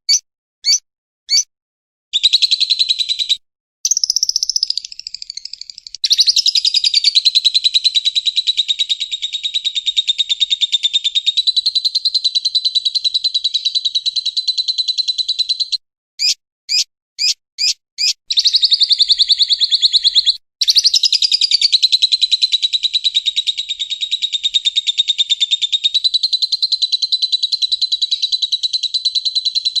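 A bird giving long, rapid, high trills, each held for about ten seconds, broken by a few short single notes near the start and again about two-thirds of the way in.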